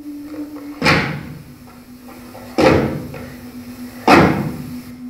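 Three loud bangs, each about a second and a half apart and each ringing out briefly as it fades, over a steady low hum that drops slightly in pitch at the first bang.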